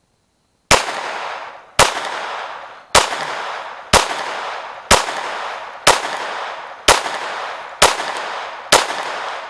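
Semi-automatic pistol firing .22 LR rounds through an Advantage Arms conversion kit on a Glock: nine sharp shots at a steady pace of about one a second, each followed by a short ringing echo. The kit is cycling cleanly, every round feeding and ejecting without a stoppage.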